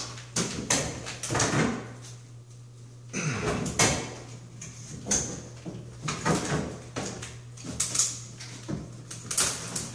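Metal shower head being twisted on its shower arm by hand: a run of irregular short scrapes and creaks from the threaded fitting, with a brief pause about two seconds in. A steady low electrical hum underlies it.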